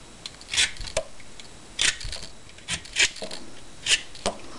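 Hand vegetable peeler scraping strips of skin off a rutabaga: about seven short scraping strokes at irregular intervals.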